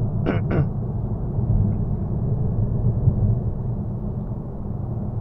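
Steady low rumble inside the cabin of a 2019 Citroën Berlingo cruising at motorway speed: road and tyre noise together with its BlueHDi 130 diesel engine. Two brief sharper sounds come just after the start.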